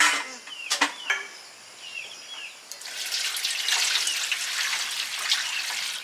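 A few sharp metal clinks of a basin being handled, then, from about three seconds in, a steady rush of water running into a metal basin of leafy greens in a sink, as the greens are washed. Birds chirp briefly in the background during the first half.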